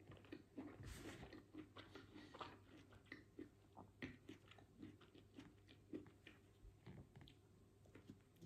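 Faint close-miked chewing of a soft, untoasted sandwich of white bread, cheese slices and cooked red peppers: quiet wet mouth clicks and small smacks, with a couple of slightly louder bites.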